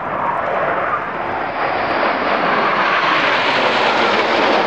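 Jet noise from the Red Arrows' BAE Hawk trainers, their single Adour turbofan engines making a steady rushing sound. It grows louder and brighter from about two seconds in as the jets come closer.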